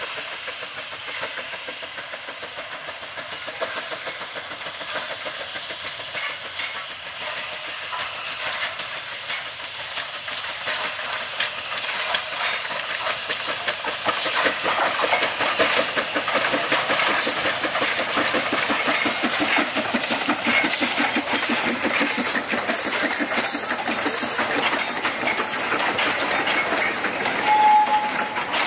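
Narrow-gauge steam locomotive KČ4-332 drawing closer and passing with a steady hiss of steam, growing louder. In the last several seconds its passenger coaches roll by with a regular clicking of wheels over the rail joints, about two clicks a second, and a brief high squeal near the end.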